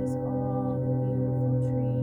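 Sustained meditation drone music: several steady, ringing held tones that stay level throughout, with a few faint short high chirps over them.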